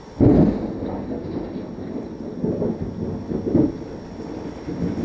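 Thunder over steady rain: a sudden loud clap about a quarter second in, then rolling rumbles that swell twice more before dying away.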